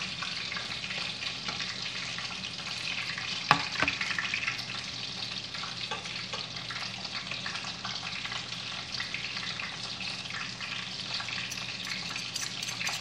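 Eggs for an omelette frying with a steady sizzle in a frying pan with no oil. A single sharp tap comes about three and a half seconds in.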